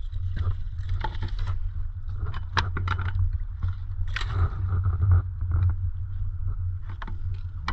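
Fishing boat's engine running with a steady low drone, under irregular knocks and scraping clatter from gear being handled on deck.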